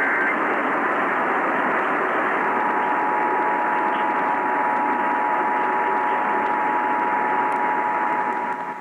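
Emergency Alert System monthly test heard over a noisy radio signal with heavy static hiss. The last of the screeching data-burst header ends at the very start. About two and a half seconds in, the EAS two-tone attention signal begins and holds steadily.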